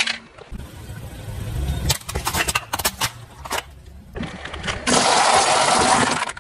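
Plastic toys being crushed under a car tyre: a run of sharp cracks and crunches, then a loud spell of grinding crunch near the end, over the low sound of the car's engine running.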